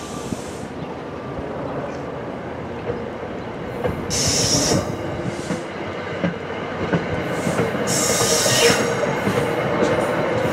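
NJ Transit commuter train running through the station, its rumble growing steadily louder, with two short high-pitched bursts from the wheels or brakes about four and eight seconds in.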